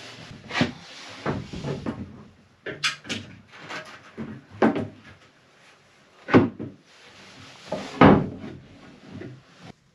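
A painted wooden boat floor board knocked and thumped as it is fitted into place, in a series of separate knocks, the two loudest late on.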